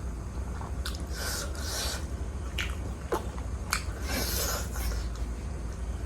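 Close-miked chewing and wet mouth sounds of someone eating juicy pork dumplings, with a few sharp clicks. A steady low hum runs underneath.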